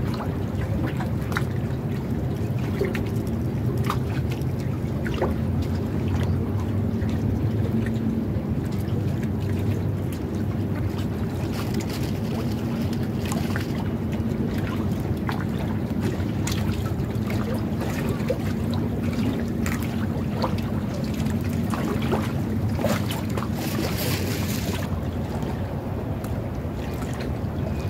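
Steady low rumble of a boat engine running on the water, with a faint constant hum. Scattered small clicks of fishing tackle being handled.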